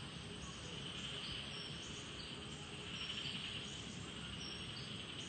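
Faint, steady high-pitched chirring of insects.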